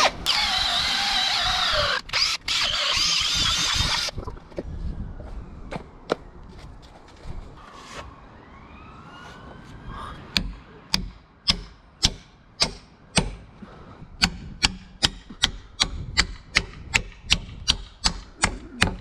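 Cordless drill with a long auger bit boring through an oak beam joint, running loud and stopping about four seconds in. From about ten seconds on, a hammer strikes an oak peg over and over, about two sharp blows a second, driving it into the joint.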